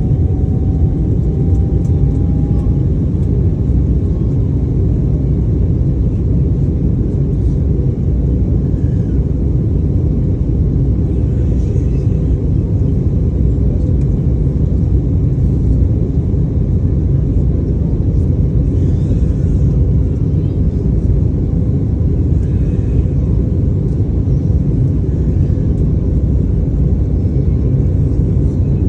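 Airliner cabin noise: a loud, steady rumble of the jet engines and airflow heard from inside the passenger cabin. A faint whine rises slightly in pitch over the first couple of seconds.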